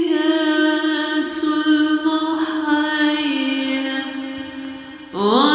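A singer drawing out one syllable in a long melismatic line of an Aleppine qudud song. The held pitch steps down several times and fades, then a new phrase swells in with an upward slide about five seconds in.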